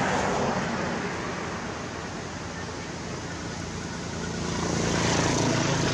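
Road traffic passing: vehicle engine and tyre noise that swells near the start and again near the end, with a low steady engine hum underneath in the second half.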